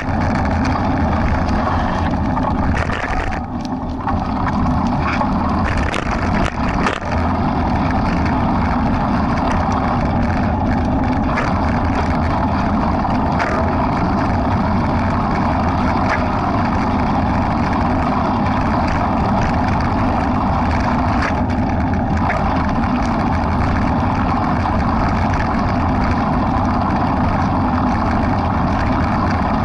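Steady wind rush and low rumble on the microphone of a camera carried by a runner at race pace, dipping briefly a few seconds in.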